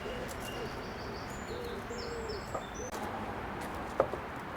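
A dove cooing in two soft, low phrases, with small birds chirping high above it and a sharp knock about four seconds in.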